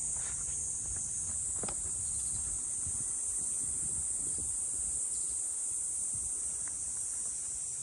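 Steady, high-pitched chorus of summer insects, a continuous shrill hiss without pauses, over a faint low rumble.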